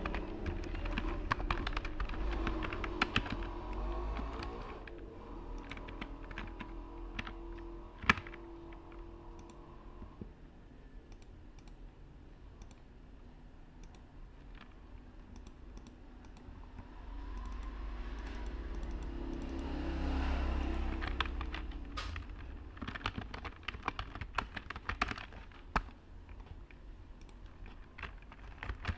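Typing on a computer keyboard in rapid bursts of key clicks, at the start and again through the last several seconds, with a single sharper click about eight seconds in. A low background rumble and hum runs underneath and swells up and fades in the middle.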